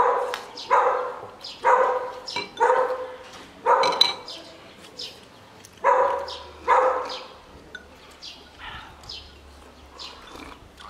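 A dog barking over and over, about one bark a second, for the first seven seconds or so, then stopping.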